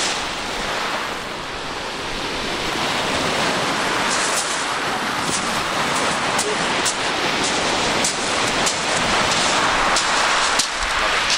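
Small waves breaking and washing over a shingle beach, a steady rushing hiss, with scattered crunches of pebbles from about four seconds in.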